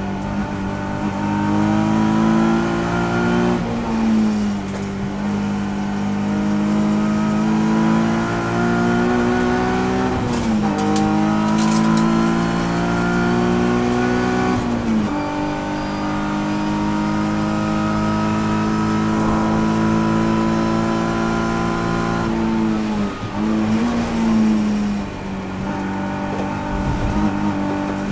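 Nissan 350Z race car's 3.5-litre V6 heard from inside the cockpit, pulling through the gears at racing speed. The pitch climbs steadily and steps down at each of several gear changes, with the revs dropping and blipping briefly about three quarters of the way through.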